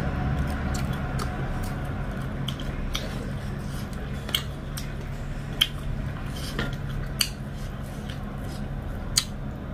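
Someone eating dhido and chicken curry by hand from a steel plate: chewing and wet mouth sounds, with a few sharp clicks of fingers and food against the plate.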